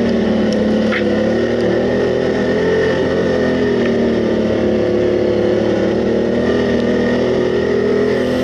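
Quad bike (ATV) engine running under way, its pitch rising and falling a little with the throttle.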